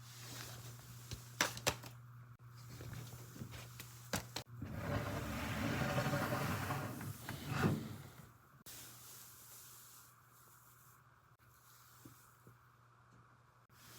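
A furnace air filter and its access panel being handled: a few sharp clicks and knocks, then the filter sliding in its slot with a rustling scrape for about three seconds, over a faint steady low hum.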